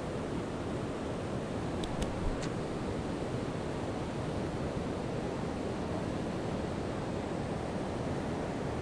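Steady rushing of a flood-swollen river churning through whitewater rapids, with a couple of faint clicks about two seconds in.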